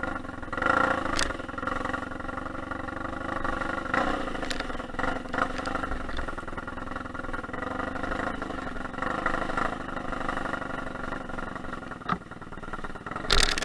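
Motorcycle engine running as the bike is ridden along a rough, rutted track, the throttle opening and easing. Sharp knocks and clatter from the bike jolting over bumps come through several times, the loudest near the end.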